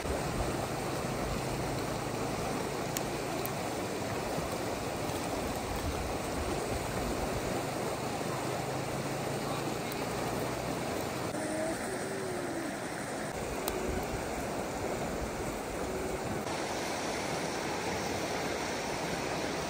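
Steady rush of running water, an even noise with no breaks.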